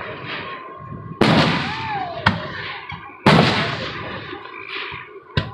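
Aerial firework shells bursting: a boom about a second in, a sharp crack just after two seconds, another boom about three seconds in and a sharp crack near the end. Each boom trails off in a rumbling echo.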